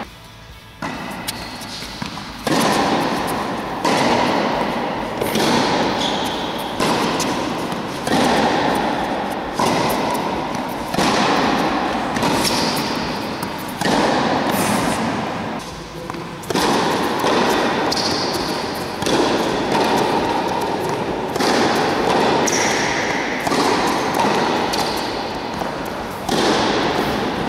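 Tennis ball struck back and forth in a baseline rally: sharp racket hits and ball bounces about every second and a half, each ringing out in the echo of a large indoor hall.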